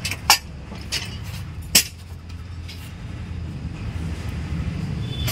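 A vehicle engine running with a steady low rumble that grows louder toward the end, with four or five sharp metallic knocks in the first two or three seconds.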